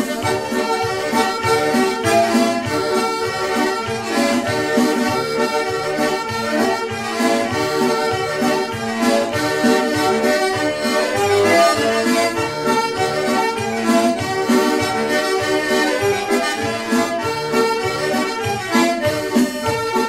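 Instrumental background music with sustained melodic notes over a steady, pulsing bass beat.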